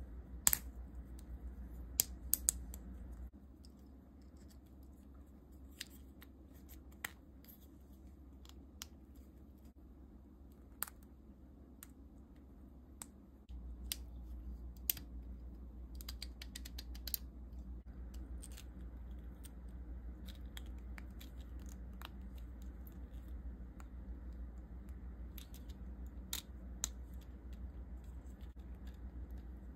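Small 3D-printed plastic parts of a ratchet-jointed figure clicking and snapping as they are handled, worked loose and fitted together: irregular sharp clicks, with a quick run of clicks about two-thirds of the way in, over a low background hum.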